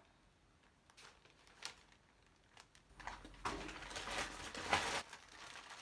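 Packaging being handled: a few light clicks, then about two seconds of louder rustling past the halfway point as items are sorted through.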